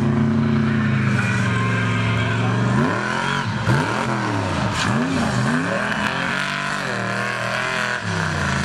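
Mega mud truck's engine at high revs, holding a steady pitch, then revving up and down repeatedly from about three seconds in as the truck leaps off a jump.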